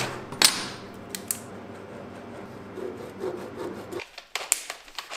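A tool rasping steadily on an MDF board for about four seconds, then stopping, followed by a few light clicks and taps.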